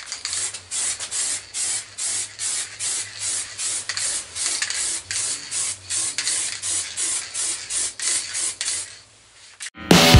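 Hand sanding of paintwork: rhythmic back-and-forth rubbing strokes, about three a second. They stop shortly before rock music starts near the end.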